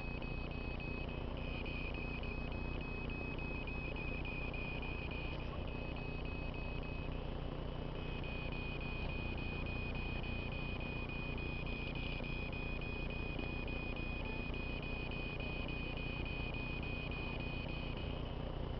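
Handheld Doppler radio direction finder's speaker sounding a steady high tone with a fainter tone above it. The tone is rapidly chopped over the first few seconds, drops out for about two seconds near the middle, then runs steady again, over a constant low rumble.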